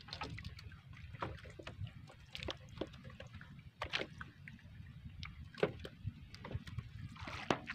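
Water sloshing against the hull of a small outrigger fishing boat, with scattered light knocks and taps as a many-hooked handline is worked in the boat. A low steady rumble runs underneath.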